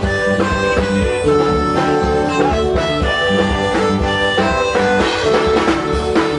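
Medeli electronic keyboard playing a tune: held melody notes that change every fraction of a second over a bass line, loud and continuous.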